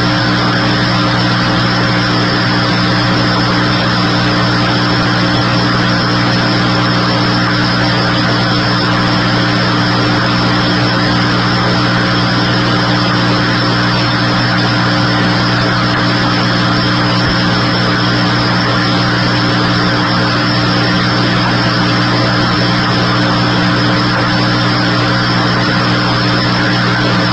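A steady mechanical drone: a constant low hum with an even hiss over it, unchanging.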